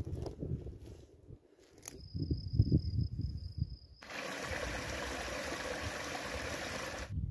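Wind buffeting the microphone in gusts, with a thin steady high whine alongside; then, about four seconds in, steady rushing of a small stream over branches, which cuts off abruptly near the end.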